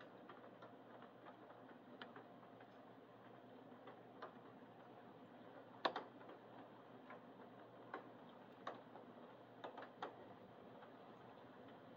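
Scattered raindrops ticking irregularly on a hard surface close to the microphone, over a faint steady hiss; one louder tap about six seconds in.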